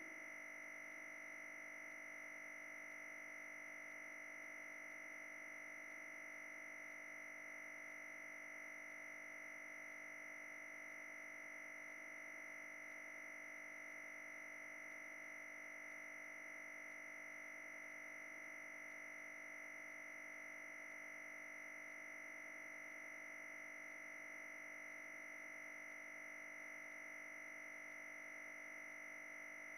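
A faint, steady high-pitched tone, unchanging throughout.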